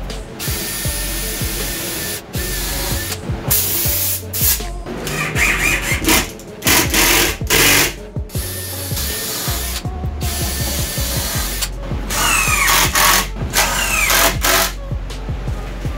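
Cordless drill driving screws into OSB panels, running in repeated short bursts with brief pauses between them. Background music plays underneath.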